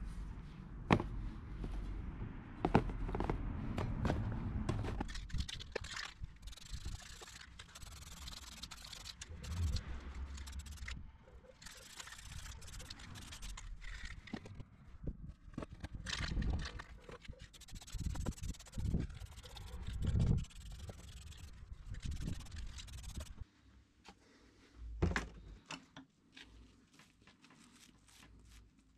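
Painted sheet-metal housing panels being handled and set down on cardboard: scattered sharp knocks and clicks with scraping and rustling, over a low rumble of wind on the microphone. Near the end it turns much quieter, with only a few small clicks.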